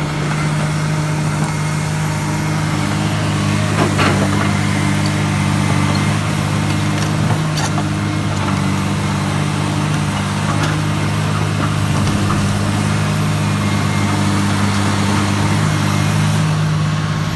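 Komatsu PC300 crawler excavator's diesel engine running steadily, with a short sharp knock about four seconds in.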